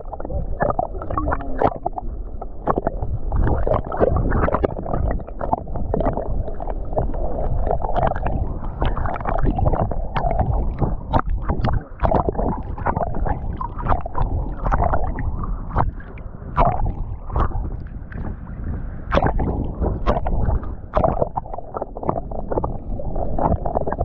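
Muffled water noise heard through a GoPro camera held underwater: a steady low rumble with frequent short sharp clicks and crackles.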